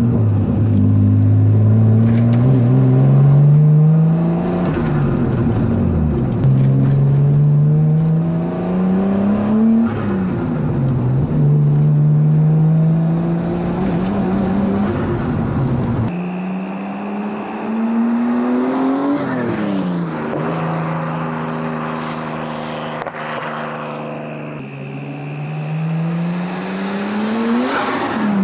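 Turbocharged Nissan RB25DET straight-six with a high-flow turbo and straight-pipe exhaust, accelerating hard several times, the pitch climbing for a few seconds and then dropping sharply at each gear change or throttle lift. With the blow-off valve blocked, the turbo flutters at each lift.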